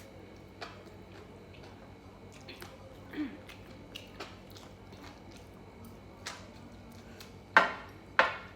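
A person eating close to the microphone: chewing with scattered soft clicks and smacks, then two louder, sharp mouth sounds near the end.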